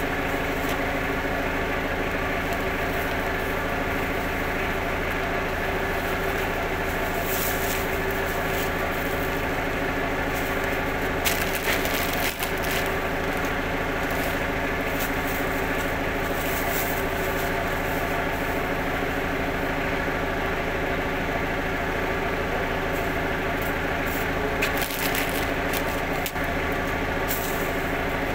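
A steady machine hum with many even tones, over which large sacks rustle and crinkle in short spells as they are shifted on the stack, most clearly a little under halfway through and again near the end.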